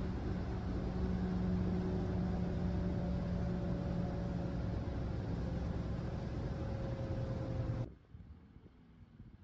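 A vehicle running steadily, a dense low rumble with a steady hum over it, until it cuts off abruptly near the end and gives way to faint wind noise.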